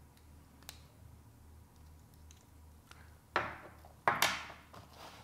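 Small plastic GoPro mount parts being handled. A light click comes first, then two short plastic clatters, about half a second apart near the end, as pieces are set down on the table.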